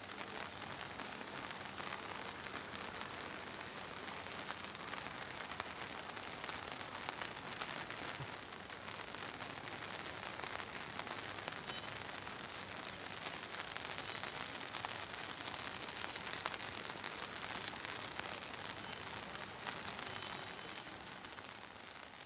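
Steady rushing noise of the flood-swollen Bishnumati river running over its banks, mixed with falling rain, fading out near the end.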